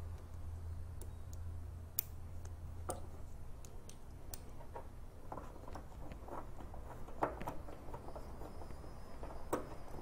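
Irregular clicks and light metallic taps from a hand ratchet and tools tightening bolts on a lawn tractor engine, in short scattered runs with a few sharper clacks.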